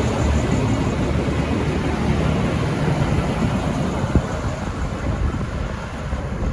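V/Line VLocity diesel multiple unit running along the platform as it arrives: a steady low rumble with one sharp click about four seconds in, easing off a little near the end.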